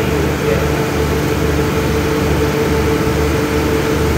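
Diesel railcar train's underfloor engines idling while it stands at a platform: a steady hum with a low pulsing throb and a constant higher tone.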